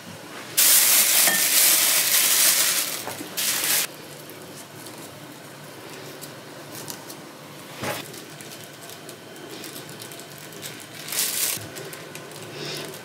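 Close-up handling noises of sesame-coated balls being pressed and poked on a plate: a loud stretch of crackling noise in the first few seconds that breaks off suddenly, then quieter rustles and small clicks, with a sharp tap about eight seconds in and another short crackly burst near the end.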